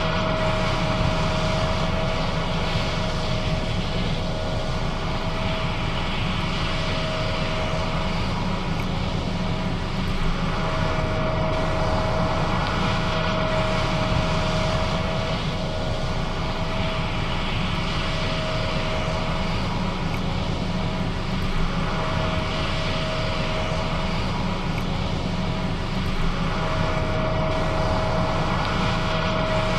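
John Deere S660 combine running steadily while harvesting, a continuous engine and machinery drone with a high steady whine that drops out twice for a few seconds.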